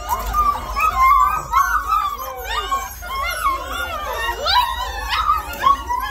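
A litter of Bernese mountain dog puppies crying all at once: many overlapping high-pitched calls that rise and fall.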